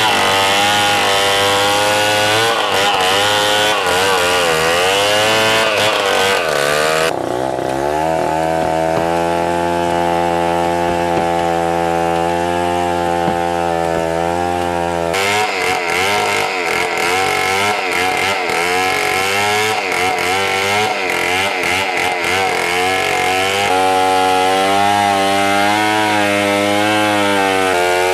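Two-stroke chainsaw running at high revs and cutting into a large log for a dugout canoe hull, its engine note wavering as it bogs under load. For several seconds in the middle the cutting hiss drops away and the engine runs steadier, then it bites into the wood again.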